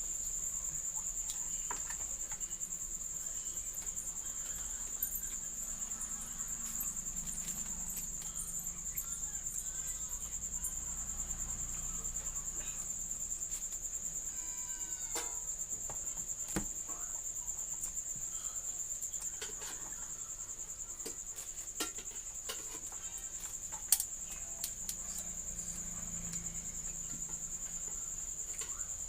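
Steady high-pitched insect chorus, with scattered faint clicks and one sharper click about 24 seconds in.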